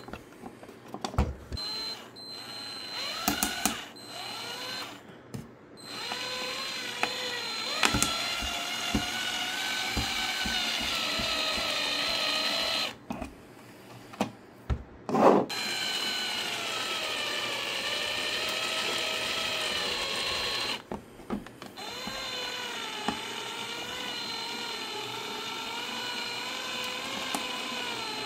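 Electric precision screwdriver driving small screws into a 3D-printed plastic case, its motor whining in three runs of several seconds each, the pitch sagging as each screw tightens. Short clicks of handling come between the runs.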